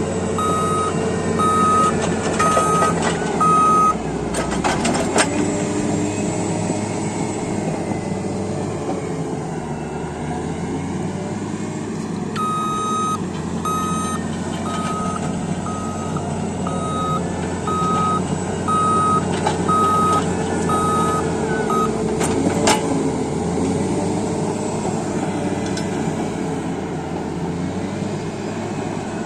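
Caterpillar D8T bulldozer's diesel engine running steadily while its reversing alarm beeps about once a second. The beeping stops early on, starts again around the middle and stops a while before the end, with a few sharp knocks in between.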